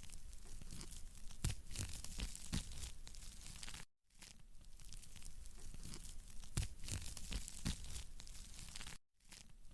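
Wood fire crackling and popping in a fireplace, a steady hiss with frequent sharp snaps. The sound cuts out for a moment about four seconds in and again about nine seconds in, as a short repeating recording restarts.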